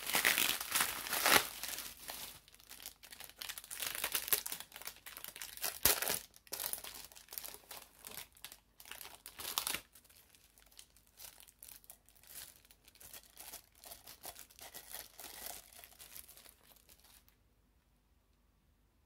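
Bubble wrap and plastic packaging film crinkling and rustling as they are pulled open by hand, loudest through the first half. After that comes softer, sparser rustling, which stops abruptly near the end.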